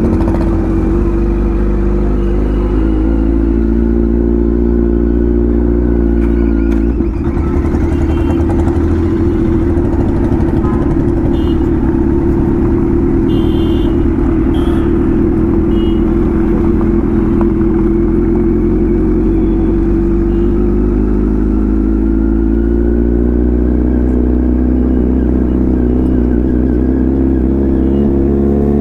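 Kawasaki Z900's inline-four engine with an aftermarket exhaust, running steadily at low revs, then revving up over the last few seconds as the bike accelerates.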